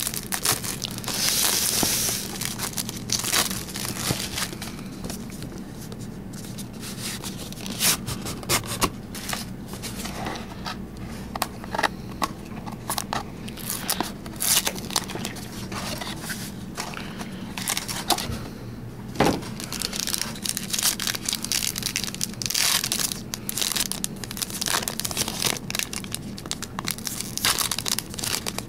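Foil trading-card pack wrappers crinkling and rustling in the hands as packs are torn open and handled, in irregular bursts.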